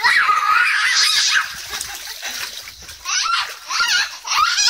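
Inflatable vinyl pool toys squeaking as they rub against each other, one long loud squeak at the start and several shorter ones near the end, with water splashing in a paddling pool.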